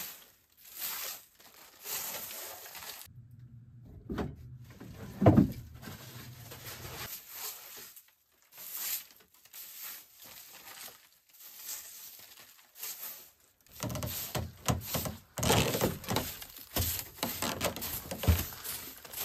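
Handwork on a wooden birdhouse: scattered short scrapes, rustles and knocks as gaps in it are caulked with jute, with one sharp knock about five seconds in. The sound comes in several separate cuts with brief silent gaps.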